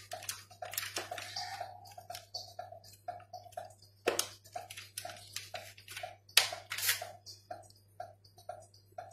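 Plastic cheese-slice wrapping crinkling and crackling as the slices are peeled off and laid on minced meat, with a few sharp crackles. Underneath, a faint regular ticking repeats about three times a second.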